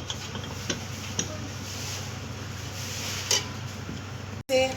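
Kitchen hum from a pot of turnip soup heating on the stove, with a few light clicks of a utensil or lid against the pot. The sound cuts off abruptly near the end.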